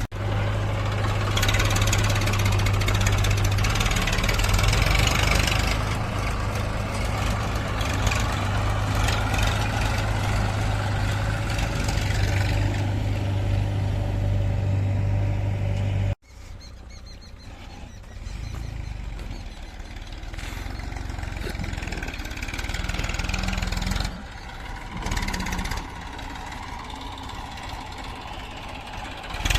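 Diesel engines of a JCB 3DX backhoe loader and Massey Ferguson tractors running steadily at a loading site, with a strong low hum. About halfway through, the sound cuts off abruptly and comes back quieter, with the engine note rising and falling near the end.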